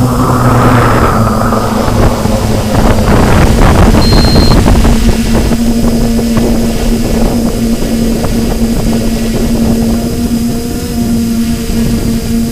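Quadcopter's electric motors and propellers humming steadily at one pitch, heard from its own onboard camera, with gusty wind rumbling on the microphone that is heaviest in the first half.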